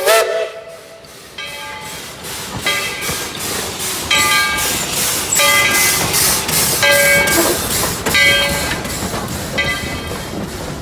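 Narrow-gauge steam locomotive No. 12 passing: its steam whistle cuts off right at the start, then its bell rings at an even pace, about one stroke every second and a half, over the running noise of the engine and the coaches rolling by.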